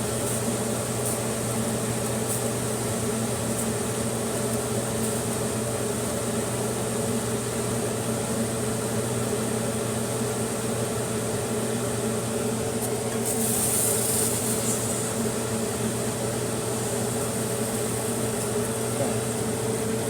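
A steady mechanical hum, like a motor or fan, running without change. A short high hiss rises over it about thirteen seconds in.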